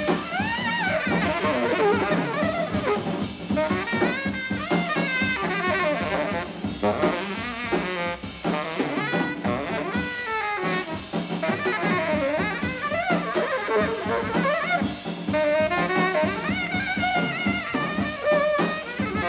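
Live jazz quartet: a tenor saxophone plays a solo full of bending, swooping notes over a drum kit's steady cymbal and drum hits.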